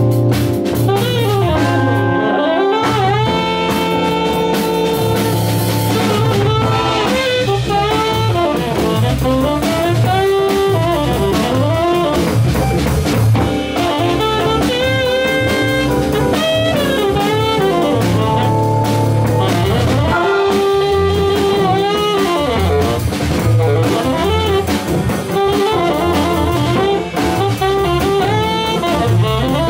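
Live jazz combo: a saxophone plays the lead melody in long, bending notes with vibrato over a drawbar organ, archtop electric guitar and drum kit with steady cymbal strokes.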